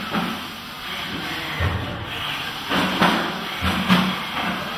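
Two combat robots clashing in an arena: a noisy, continuous clatter with several sharp knocks, about one and a half, three and four seconds in, as the wedge robot rams and pins the shell robot.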